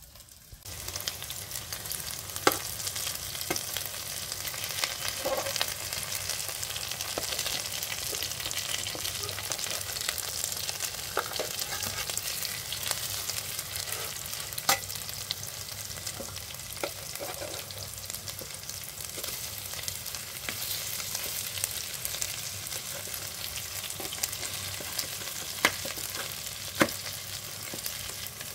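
Food sizzling as it fries in a pan: a dense, steady hiss that starts suddenly about a second in, with a few sharp clicks scattered through it.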